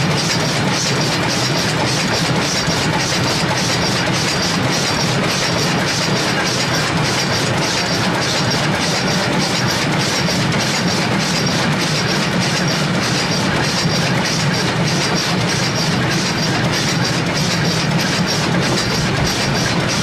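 Steam locomotive running along the track, heard close to its driving wheels and rods: a steady loud noise with a fast, even rhythmic beat.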